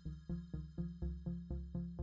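Background electronic music with a steady pulsing synth beat, about four pulses a second over sustained high tones.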